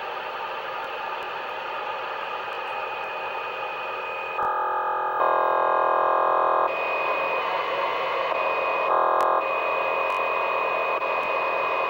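CB radio speaker hissing with static, then an unidentified strange signal comes in about four seconds in. It is a dense buzzing signal that switches on and off in blocks, alternating with a steady high tone, typical of an unknown data or remote-control transmission on the A-frequency.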